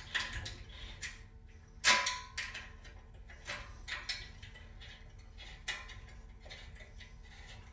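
Irregular light metallic clicks and taps as an Allen wrench turns two small stainless steel bolts through an aluminum mounting bracket into an aluminum post, with one louder, briefly ringing clink about two seconds in.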